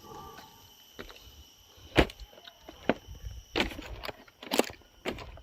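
A few separate sharp knocks and clicks at irregular intervals, the loudest about two seconds in.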